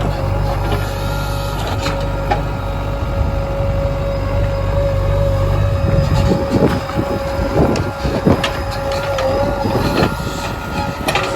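Diesel engine of a JCB 3DX backhoe loader running under load with a steady whine. From about halfway through, irregular clunks and thuds come in as the machine works the mud.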